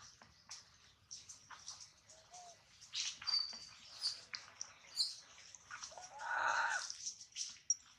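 Baby macaque crying: a run of short, high squeaks and whimpers, with one longer, louder cry about six seconds in.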